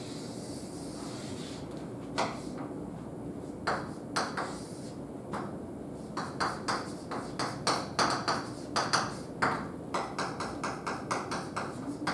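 Chalk writing on a blackboard: a few separate chalk taps and strokes, then from about six seconds in a quick run of them, about three a second, as characters are written.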